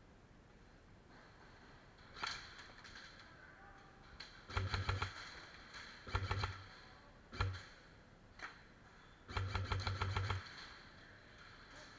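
Airsoft rifle firing on full auto in short bursts: a fast rattle of shots, about fifteen to twenty a second. A single shot about two seconds in, bursts of under a second around the middle, and a longer burst of about a second near the end.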